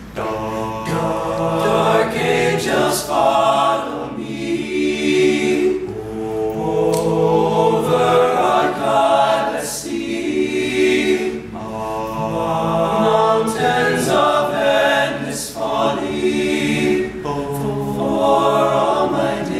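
All-male a cappella group singing in close harmony, several voices holding chords that swell and ease in phrases of a few seconds.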